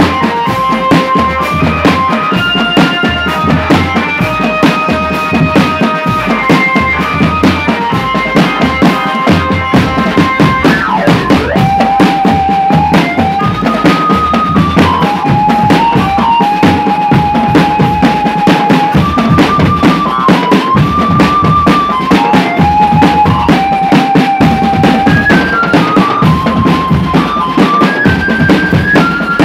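Drumband playing: snare and bass drums beat a busy, fast rhythm under a stepping melody of held notes.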